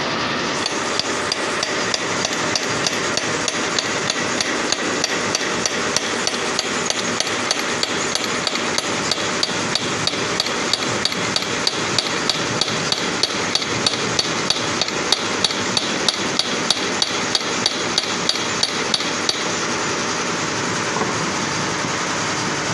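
Hammer tapping on the steel main shaft and bearing of an embroidery machine, about three to four light taps a second, to seat the new main shaft bearing. The taps grow a little heavier, then stop shortly before the end, leaving a steady background hiss.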